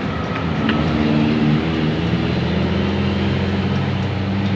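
Bus engine running with a steady low drone that swells slightly about a second in.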